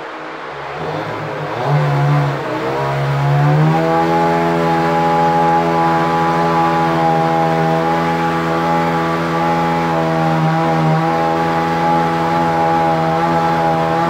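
Small electric motor starting up, its hum rising in pitch over about three seconds and then running steady over a constant rushing hiss.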